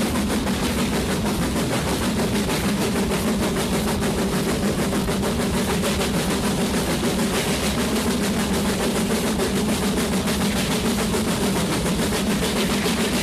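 Steam locomotive working hard, its exhaust chuffing in a fast, even rhythm, heard from an open carriage window just behind the engine.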